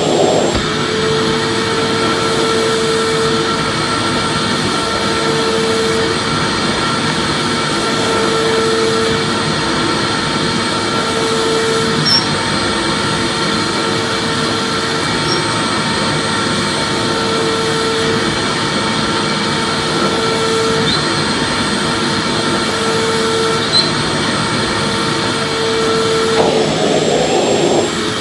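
Vacuum cleaner running steadily, a continuous whooshing motor noise with a hum that swells and fades every two to three seconds, played as a soothing white-noise sound for babies.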